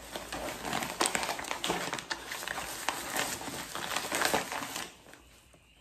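Packaging being unwrapped by hand: dense rustling and crinkling with many sharp crackles, which stops almost five seconds in.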